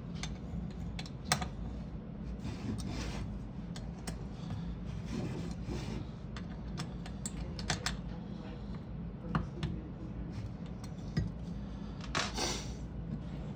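Button head screws and washers being fitted and tightened into a metal floor-socket cover plate: scattered small metallic clicks and short scrapes of hand tool and screw, over a steady low hum.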